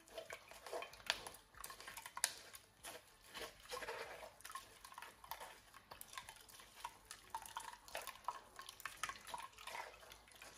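Spoon stirring and pressing wet blended cucumber-ginger pulp in a plastic sieve to force the juice through, a run of short irregular scraping strokes, with juice dripping into the glass bowl below.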